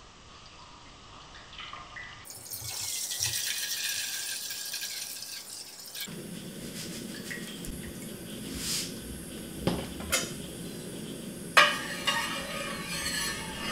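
Water poured from a plastic jug into a stainless steel pot, splashing steadily. Near the end a steel spoon clinks and scrapes against the pot as salt is stirred into the water.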